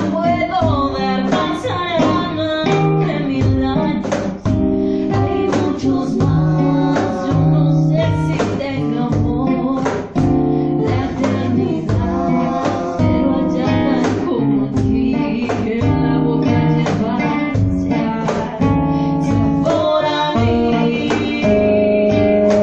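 A bolero sung by a woman to acoustic guitar and cajón, with male voices joining in harmony.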